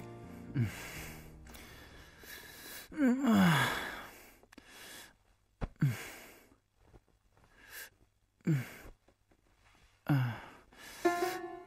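A man's sleepy sighs and groans as he stirs and wakes, each falling in pitch, about five of them with the loudest about three seconds in.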